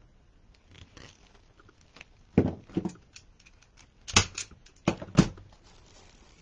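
Plastic zip tie being cinched tight with a zip tie tensioning gun: a handful of sharp clicks and snaps, a pair about two and a half seconds in and a louder cluster from about four to five seconds, with soft rustling of mesh between.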